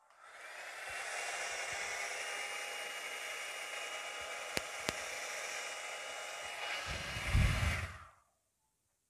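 Handheld electric hair dryer blowing poured acrylic paint outward: it comes up to speed over the first second, runs steadily with a thin whine, and shuts off about eight seconds in. Two small clicks fall midway, and a low rumble joins shortly before it stops.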